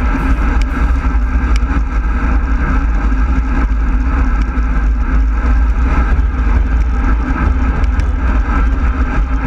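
Wind rushing and buffeting over the microphone of a handlebar-mounted camera on a road bike descending at about 38 mph, a steady heavy roar.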